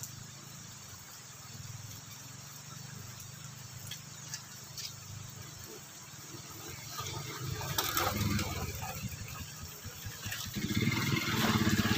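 Motorcycle engine approaching, growing steadily louder over the last few seconds.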